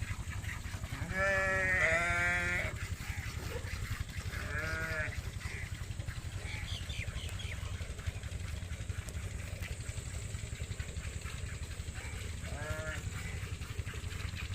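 Livestock bleating: a long, loud, quavering call about a second in, a second call around four seconds, and a short one near the end, over a steady low hum.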